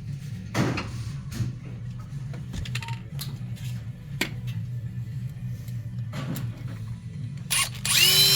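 Scattered clicks and knocks of tools and parts being handled over a steady low hum. Near the end a power drill runs briefly, its whine rising as the motor spins up.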